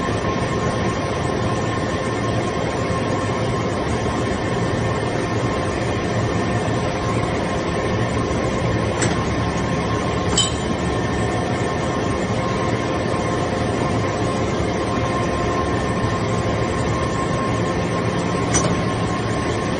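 Hydraulic power unit of a vertical metal chip briquetting press running steadily: a constant drone with several faint steady whining tones over it. A few brief clicks stand out, one around the middle and one near the end.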